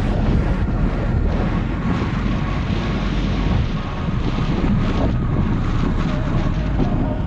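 Strong wind buffeting an action camera's microphone during a fast ride: a dense, fluctuating low rumble.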